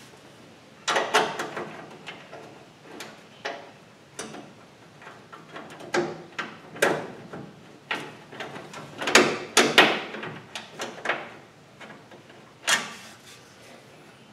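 Fan shroud being worked into place against a car radiator and its mounting hardware started by hand: irregular clicks, knocks and rattles, with the loudest cluster about nine to ten seconds in.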